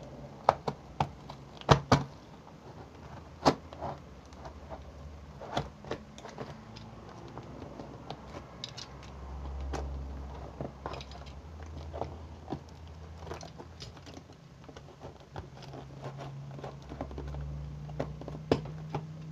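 Snap-off utility knife slitting the packing tape and cardboard of a parcel: irregular sharp clicks and crackles of blade on tape and card, loudest in the first few seconds.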